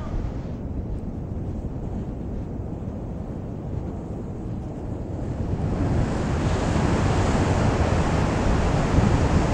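Wind buffeting the microphone over the steady wash of ocean surf, swelling louder and hissier about halfway through.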